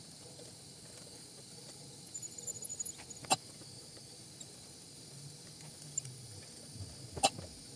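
Brass gas torch burning with a steady hiss while glass is worked in its flame, with a few tiny ticks and two sharp clicks, about three seconds apart.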